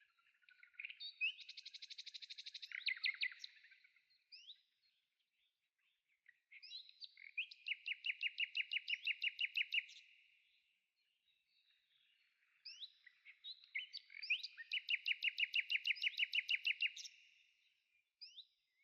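A songbird singing three bouts of rapid trilled notes, each a few seconds long, with short pauses between them.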